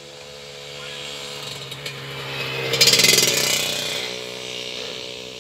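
A motor vehicle passing by on a nearby road: its engine buzz and hum swell to a peak about three seconds in, dip slightly in pitch as it goes past, then fade.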